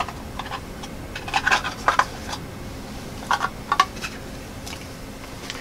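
Short light clinks and rattles of small metal gear being handled and set down on a table, in little clusters about a second and a half in and again past three seconds.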